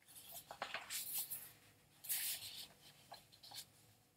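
Sheets of paper rustling and shuffling in a few short bursts as pages are turned.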